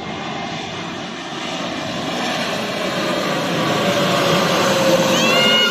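Airliner passing low overhead, its engine noise growing steadily louder with a slowly falling tone. A higher whine sweeps up and holds near the end.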